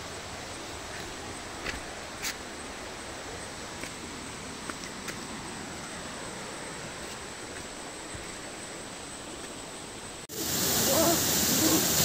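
A steady rushing hiss of running water with a few sharp clicks, then an abrupt cut about ten seconds in to the much louder, full rush of a waterfall pouring into a pool.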